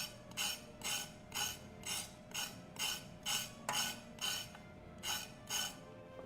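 Kitchen knife cutting through crisp raw vegetable onto a cutting board in an even rhythm of about two strokes a second, about a dozen cuts, stopping shortly before the end.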